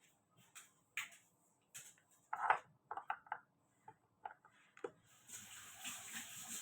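A series of light, irregular knocks and clicks, the loudest about two and a half seconds in, followed by a steady hiss that starts near the end.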